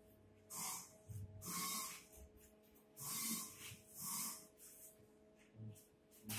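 Four short, breathy puffs of heavy breathing, about a second apart, over a faint steady machine hum.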